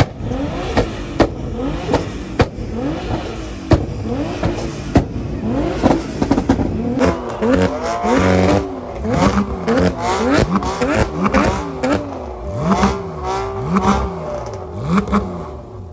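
A performance car's engine revved over and over in quick throttle blips through its exhaust, each rising and falling in pitch, with sharp cracks between them in the first few seconds. The blips come faster and closer together from about halfway on.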